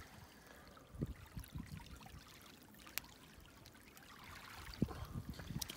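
Faint trickle of shallow tide water running over a wet mudflat, with a few soft knocks and one sharp click about three seconds in.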